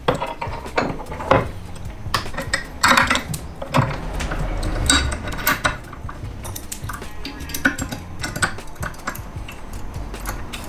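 A steel brake-line flaring block and its clamp bolts clinking and rattling as they are handled and set in a bench vise, with scattered sharp metallic clicks and knocks throughout.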